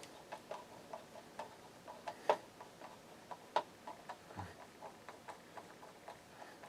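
Faint light clicks and taps, about three a second and uneven in strength, with a soft low thump a little past four seconds in.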